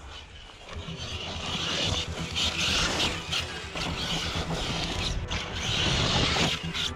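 Traxxas Sledge 6S RC monster truck driving hard over dirt: a rough, rattling mechanical noise of its drivetrain and tyres that grows louder about a second in.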